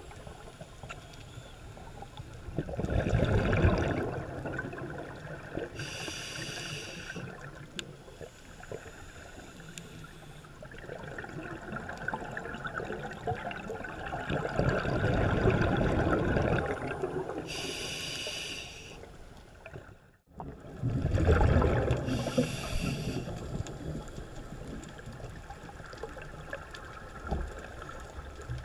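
Scuba regulator breathing heard underwater: long rushing bursts of exhaled bubbles alternating with the shorter hiss of inhalation through the regulator, over about three breaths.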